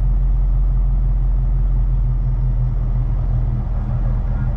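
Steady low drone of a Kenworth T880 semi's Cummins diesel engine, with road and tyre noise, heard from inside the cab while cruising at highway speed.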